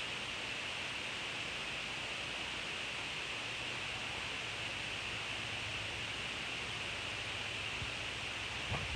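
Steady, even hiss with no distinct events: the recording's background noise floor.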